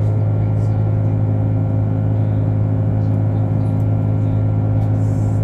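Airliner engine noise heard inside the passenger cabin in flight: a steady low hum with fainter steady tones above it, unchanging throughout.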